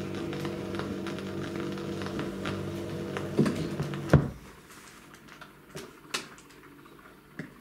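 1963 Fidelity UA7 record changer: a steady hum for about four seconds, then a sharp clunk as the changer mechanism trips, followed by faint scattered clicks of the mechanism cycling to the next record.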